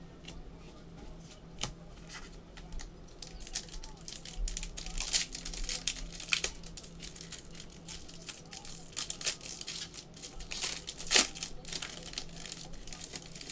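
Foil trading-card pack wrappers being torn open and crinkled by hand: irregular sharp crackles, thickest about five to six seconds in, with the loudest about eleven seconds in.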